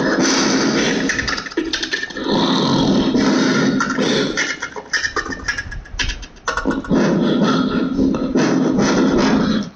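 Beatboxing into a handheld microphone cupped to the mouth, played through a small portable speaker: a dense run of vocal percussion with clicks, with brief lulls near the middle.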